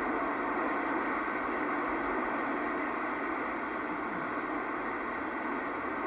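Steady hiss of static from a CB radio's speaker, held between transmissions with no voice on the channel.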